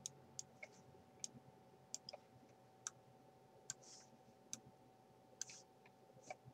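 Faint computer mouse clicks, irregular and roughly one a second, over a faint steady background tone.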